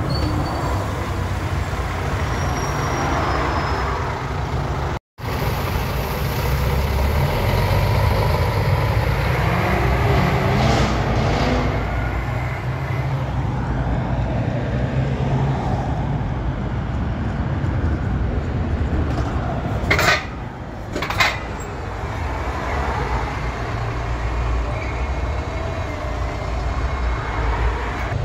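City buses running at a stop and in passing traffic: a steady low engine rumble, with a rising whine as a bus pulls away, and two brief sharp hisses about two-thirds of the way through.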